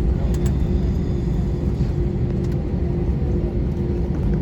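Cabin noise inside an Airbus A321 rolling on the ground just after landing: a steady low rumble with a constant hum.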